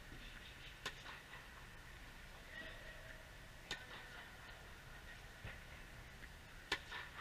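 Tennis ball struck by a racket on forehand topspin strokes: three sharp pops about three seconds apart, with fainter knocks of the ball between them, over a steady low hum of the hall.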